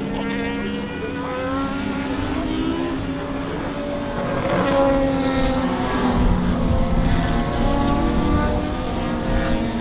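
Race car engines passing through a corner and accelerating away, several engines overlapping with their pitches rising; the sound grows louder from about four seconds in.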